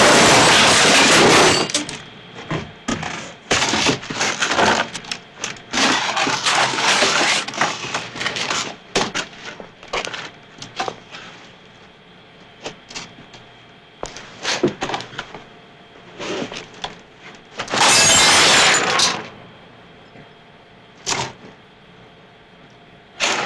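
Foley sound effects for a film fight: a loud crash of a table smashing and breaking at the start, then a run of sharp blows, knocks and scuffling, a second loud crash a little over halfway through, and a last sharp hit near the end.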